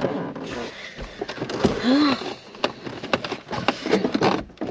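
Clicks, knocks and rustling from people shifting about and handling things inside a car's cabin, with a short hum that rises and falls about two seconds in.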